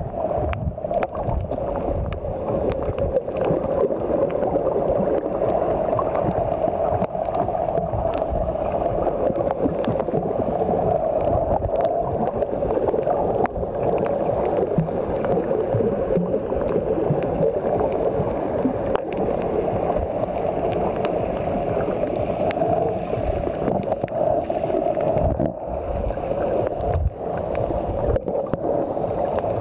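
Steady, muffled water noise heard underwater, a continuous gurgling wash with a low rumble beneath, dipping briefly near the end.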